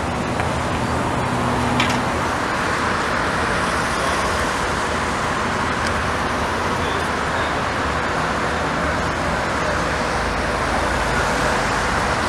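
Steady city road-traffic noise, a continuous even wash of car sound, with a low hum that fades out about two seconds in.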